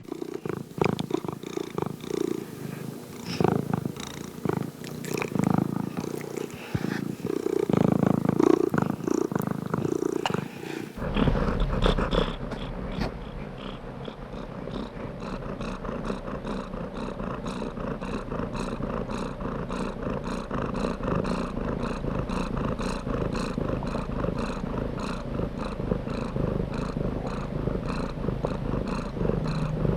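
Domestic cat purring close to the microphone. About eleven seconds in, the sound switches abruptly to a steadier purr with an even, regular pulse.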